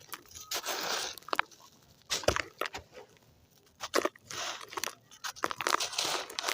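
Handmade gritty red sand crunching as it is crumbled in water, in about four separate bursts with sharp little cracks in them and quiet gaps between.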